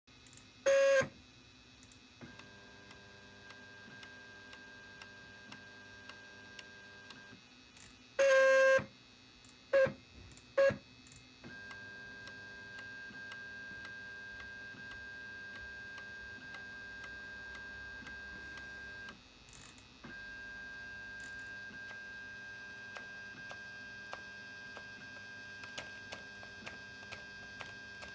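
Anycubic 3D printer's beeper sounding four times, then its Z-axis stepper motor running in three stretches with a steady high whine, broken by short pauses. Near the end a faint regular ticking joins it, about twice a second: the strange noise from the Z-axis stepper.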